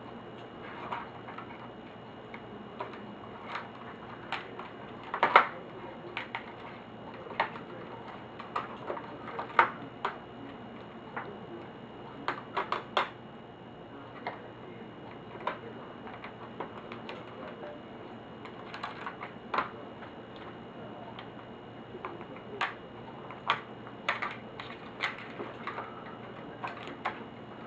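Irregular clicks and taps of small plastic and metal parts being handled while a laptop is taken apart, some louder knocks among them, over a steady faint background with a thin high tone.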